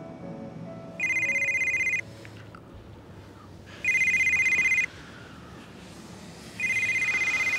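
Telephone ringing with an electronic warbling ring: three rings of about a second each, a couple of seconds apart.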